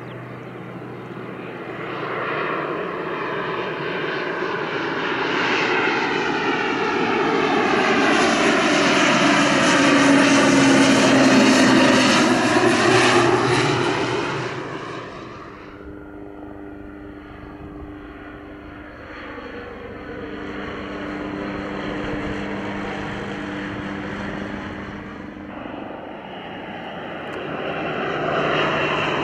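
Airplanes flying past. The engine sound swells to a loud peak about ten seconds in and falls away sharply a few seconds later. A second, quieter pass follows, and another begins to build near the end.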